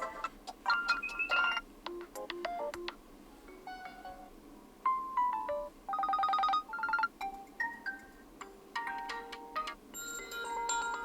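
Oppo A77 default ringtones playing: short electronic melodies of clear, bell-like notes, one tone giving way to the next several times, with brief gaps between them.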